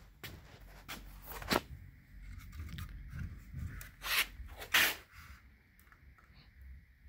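Handling noise: a string of short rustling, rubbing scrapes, the loudest about a second and a half, four and nearly five seconds in, then quieter after about five seconds.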